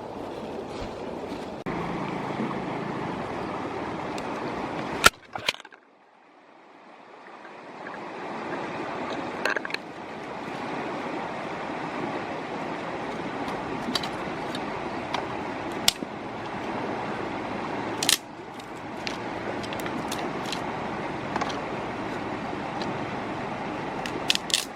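Steady rush of flowing river water, with occasional sharp clicks and knocks. About five seconds in, two loud clicks come just before the water sound briefly falls away and then swells back.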